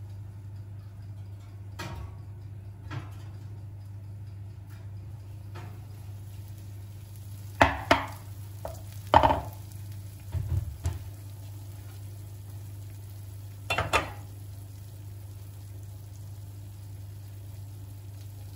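Kitchen utensils and cookware clinking and knocking a handful of times, the loudest in the middle stretch, over a steady low hum.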